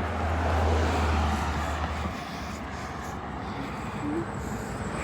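A car passing by: tyre and engine noise that swells about a second in and slowly fades, with a low engine hum that drops away about two seconds in.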